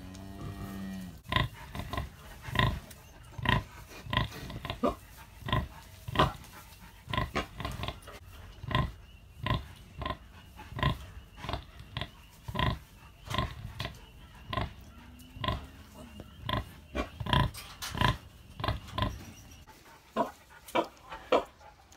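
Sow grunting in a steady rhythm of short grunts, about one and a half a second, while her newborn piglets suckle: the nursing grunts that go with milk let-down. A short, longer-held call in the first second.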